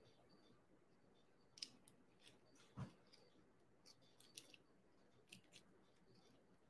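Faint, scattered scrapes and clicks of a small knife scraping the fuzzy choke out of a cooked artichoke half, with a soft knock about three seconds in.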